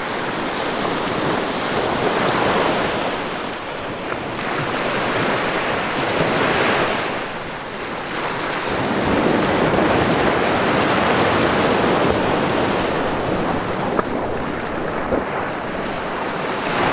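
Small waves breaking and washing up on a sandy beach, the surf swelling and easing every few seconds, with wind buffeting the microphone.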